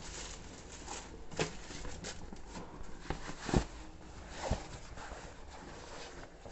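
Hands handling a foam-padded laptop sleeve, turning it inside out, with the fabric rubbing and rustling. There are a few soft knocks, the loudest about halfway through.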